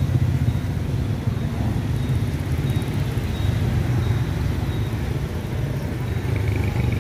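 Steady low rumble of street traffic, motorbikes and cars going by.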